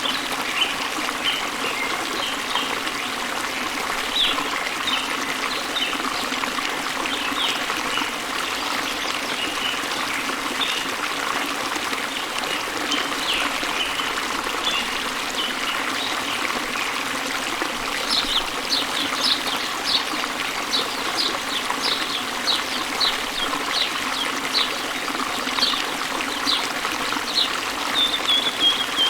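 Waterfall running in a steady rush of water, with small birds chirping over it. The chirps come scattered at first, then in a quicker, denser run about two-thirds of the way through.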